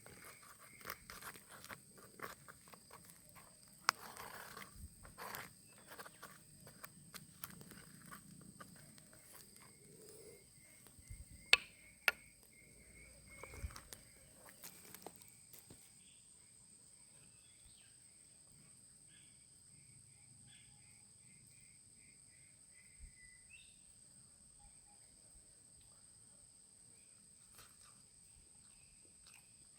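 Quiet outdoor ambience: a steady high insect drone with repeated short chirps, like crickets. Scattered clicks and knocks through the first half, two sharper ones about halfway through, then only the insects.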